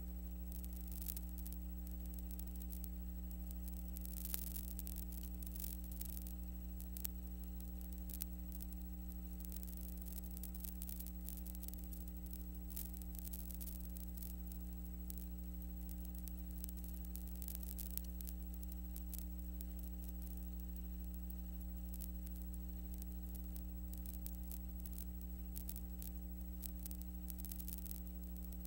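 Steady electrical hum with several fixed tones underneath, plus faint crackling static and scattered small clicks: the noise floor of a silent film transfer, with no sound of the game itself.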